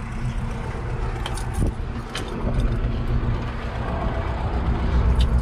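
Tractor engine running steadily close by, getting louder about five seconds in, with a few light clicks.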